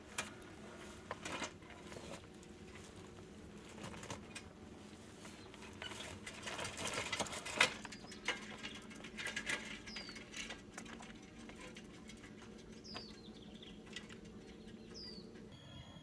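Light rustling and scattered knocks, busiest around the middle, with a few short falling bird chirps in the second half.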